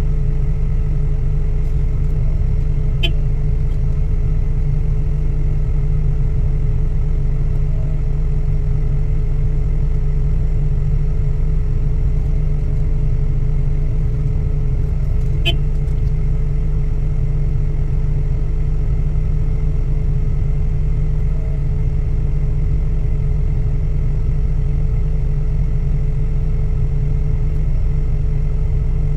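Heavy diesel machine's engine running steadily at a constant speed, with a low rumble. Two brief sharp high clicks about 3 and 15 seconds in.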